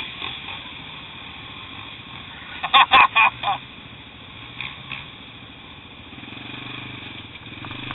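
Trail motorcycle engines running steadily, with a short burst of loud shouts about three seconds in.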